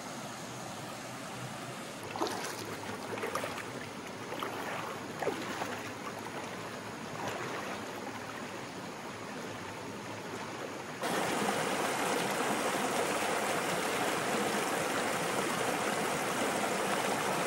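Creek water flowing steadily, with a few short sharp splashing sounds in the first part. About eleven seconds in the water sound cuts abruptly to a louder, fuller rush.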